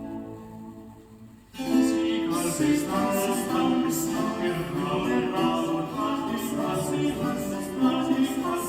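Song with singing played through Kenwood CM-7ES compact monitor speakers driven by a Sony STR-DE197 receiver; a soft passage gives way to the full band about a second and a half in.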